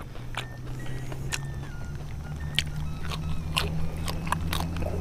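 A person biting and chewing raw leaves and stems, with scattered crisp crunches close to the microphone. Underneath, a steady low hum.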